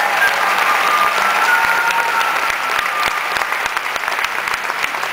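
Audience applauding, a dense steady patter of clapping, with faint music holding a few thin tones underneath.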